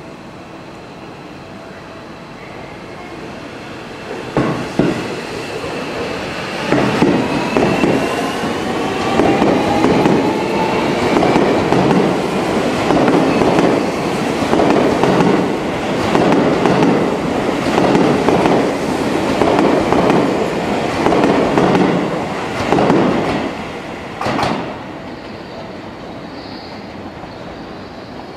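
Seibu 40000-series electric train pulling away from the platform, its motor whine rising in pitch as it picks up speed. Its wheels then clatter over rail joints in a regular rhythm, about once a second, as the cars pass close by. A sharp knock comes about four seconds in and another near the end.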